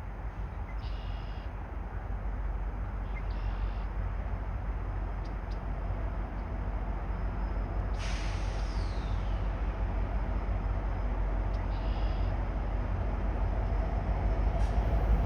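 Approaching GO Transit commuter train rumbling steadily and growing louder as it pulls into the station. About eight seconds in there is a sharp hiss of air that drops in pitch.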